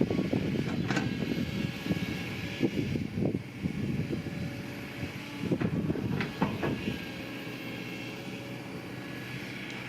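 Heavy earthmoving machine's diesel engine running, with uneven low rumbling and a few sharp metallic knocks as it works. It settles to a steadier hum over the last few seconds.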